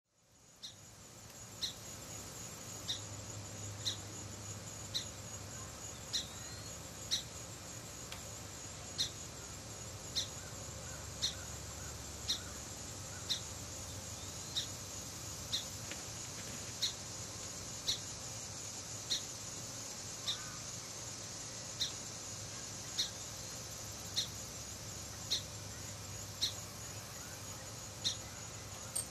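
Summer insect chorus making a steady high-pitched drone, with a short, sharp call repeated at a regular pace of about once a second.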